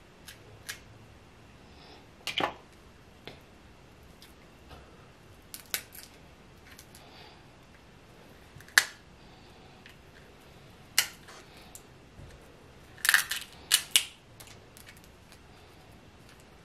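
Snow crab leg shells cracked and snapped apart by hand: scattered sharp cracks, with a quick cluster of several about thirteen to fourteen seconds in.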